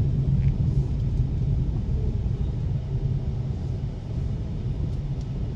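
Steady low rumble of a moving car heard from inside the cabin: engine and road noise.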